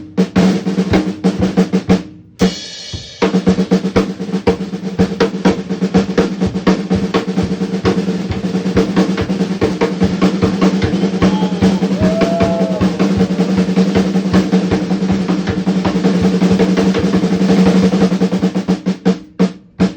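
Drum solo of fast, continuous drum-roll strikes over a steady ringing tone. It breaks off briefly about two seconds in, then rolls on densely and ends in a few separate hits.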